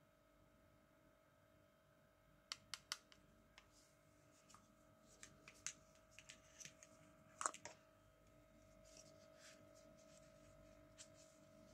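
Small plastic toy pieces clicking and tapping as gloved hands handle them: three quick clicks about two and a half seconds in, then a run of light taps and clicks, the loudest about seven and a half seconds in. A faint steady hum lies underneath.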